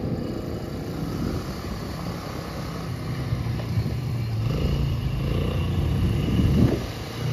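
ATV engine running, growing louder about three seconds in.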